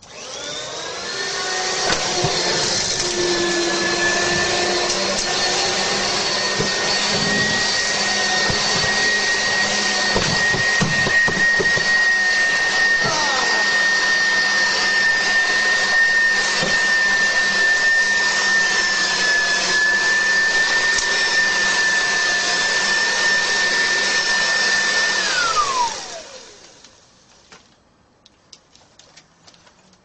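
Vacuum cleaner switched on: the motor spins up to a steady, loud high-pitched whine and runs for about 25 seconds. A few knocks and rattles come midway as material is sucked up. It is then switched off, its whine falling in pitch as the motor winds down.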